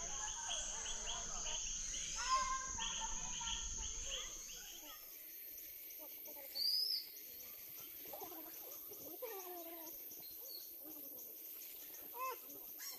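Woodland ambience: insects buzzing in steady high tones, a higher-pitched one taking over about four seconds in, with scattered bird calls and chirps throughout; the loudest is a short whistled call about seven seconds in.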